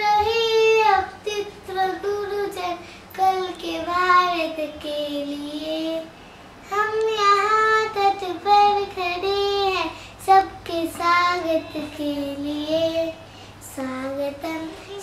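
A young girl singing a song unaccompanied, in short melodic phrases with held notes.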